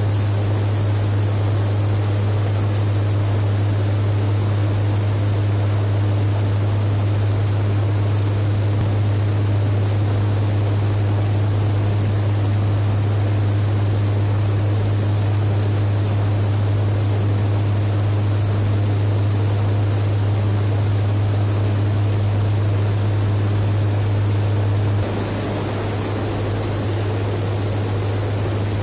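Four-engine turboprop of a KC-130J Hercules tanker in flight: a loud, steady, low propeller drone. Near the end the drone changes character and drops slightly in level.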